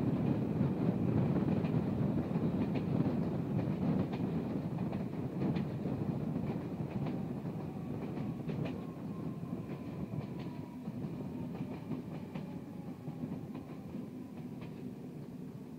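Passenger train running on a curving line: a steady rumble of wheels on rails with scattered clicks from the track. A faint tone falls slowly in pitch around the middle, and the train grows gradually quieter toward the end.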